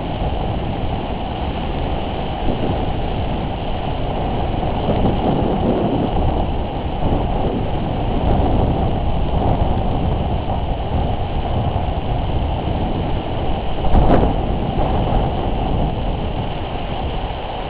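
Squall wind buffeting the microphone: a loud, steady low rumble that swells and eases in gusts, with one short, sharper jolt about fourteen seconds in.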